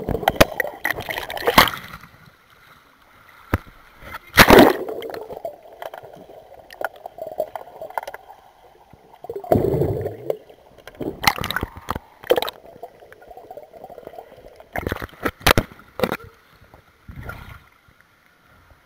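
Pool water heard underwater through a submerged camera: murky gurgling and sloshing, broken several times by sharp knocks and splashes.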